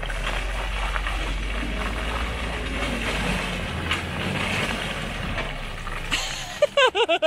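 Jeep Wrangler engine running at low speed as it crawls up a rutted dirt trail, with a low rumble that eases off about halfway through. Near the end comes a short burst of loud cries that bend in pitch.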